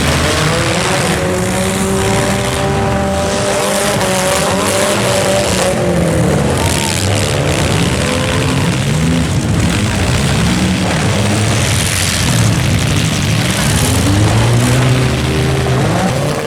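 Engines of several compact demolition-derby cars revving up and down, loud, their pitches rising and falling against one another over a steady wash of noise.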